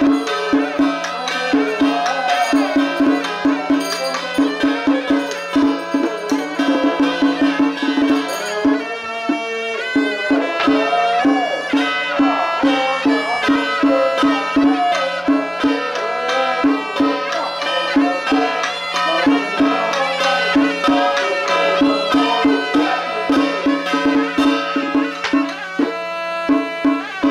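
Traditional temple ceremony music: a reedy melodic line over a quick, steady drum beat and a low held drone.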